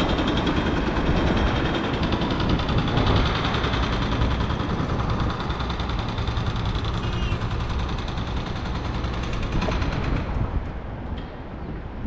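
Jackhammer pounding in rapid, continuous blows, easing off about ten seconds in.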